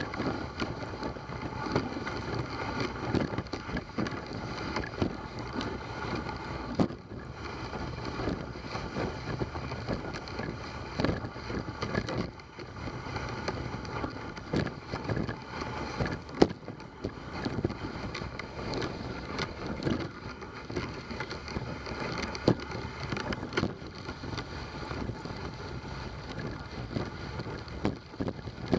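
Dog sled running along a snowy trail: the runners hiss and scrape over the snow, with scattered knocks and bumps from the sled and wind on the microphone.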